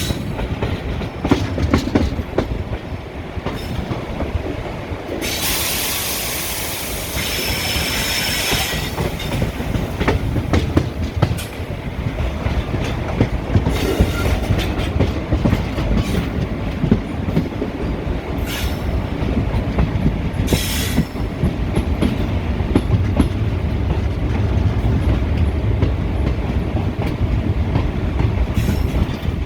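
ICF passenger coaches running at speed, heard from inside the coach: a steady low rumble with the clickety-clack of wheels over rail joints. About five seconds in, a loud rushing hiss with a thin high squeal lasts some three seconds, and shorter rushes come later.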